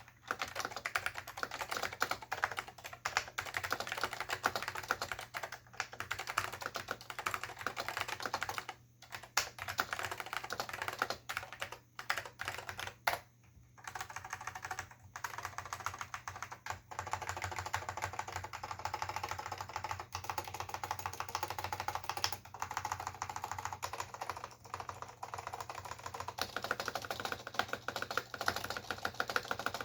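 Fast, continuous typing on a Dell AT101 keyboard with Alps SKCM Salmon switches and Alps PBT dye-sublimated keycaps: a dense stream of key clicks and bottom-outs. The typing breaks off briefly three times, about 9, 12 and 13 seconds in.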